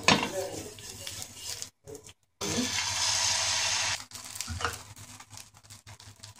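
Sago dosa batter sizzling on a hot oiled nonstick pan: a steady hiss that starts suddenly a little past the middle, lasts about a second and a half, then drops to light crackling. Before it, a few knocks and rubbing as oil is spread over the pan by hand.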